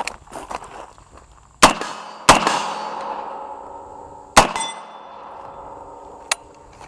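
Three sharp shots from a CMMG MK3 short-barrelled .308 AR-10 pistol, about a second and a half, two and a quarter, and four and a half seconds in, the last two followed by a long metallic ringing that slowly fades. A lighter crack comes near the end.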